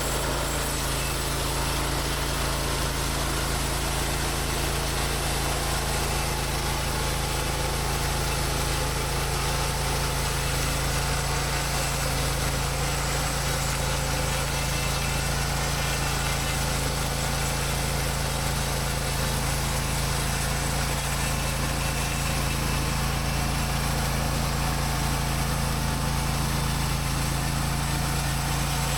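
Portable bandsaw mill's engine running steadily at an even pitch and level, with no change in load.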